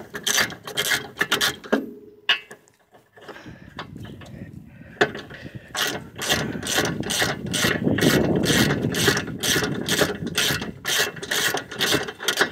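Hand ratchet wrench clicking in quick, even strokes, about three a second, as it backs out bolts on the front suspension's steering linkage. The clicking stops for a few seconds in the middle, then resumes.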